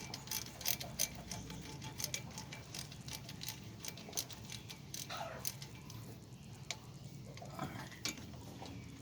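Hand ratchet clicking in irregular runs of short ticks as the long brake caliper bolts are backed out.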